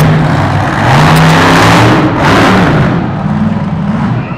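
Cyclops monster truck's engine revving hard, its pitch rising and falling with the throttle, then growing quieter about three seconds in as the truck drives away across the arena.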